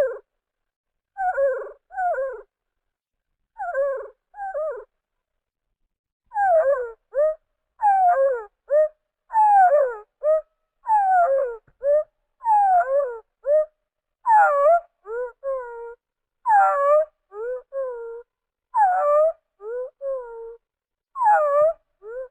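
Reconstructed dinosaur calls made from pitch-lowered bird recordings: a series of short, whining calls that glide down and then up, often in pairs, with dead silence between them. After a pause about five seconds in, the calls come faster and closer together.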